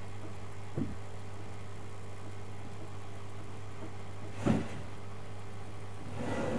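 A steady low hum, with a soft thump about a second in, a sharper, louder knock about four and a half seconds in, and a rustle near the end.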